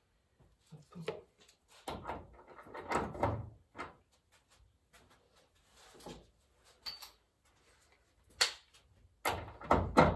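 Irregular knocks, clinks and scrapes of hand tools and engine parts being handled during work on a car engine, with a louder cluster of knocks near the end.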